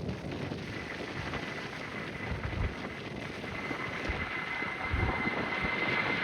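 Gusty wind buffeting the microphone, with a faint, steady high whine from the Airbus A319-131's IAE V2500 jet engines that grows louder toward the end as the engines come up to take-off power.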